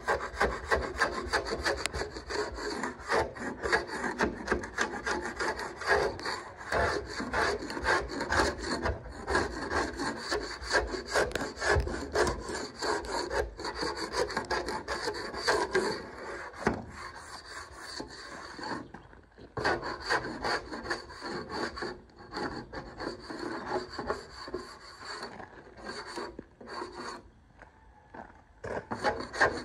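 Long-handled scraper rasping over the steel hull plating of a narrowboat in quick, repeated strokes, taking old bitumen blacking off down to bare steel. The scraping stops briefly a couple of times in the second half.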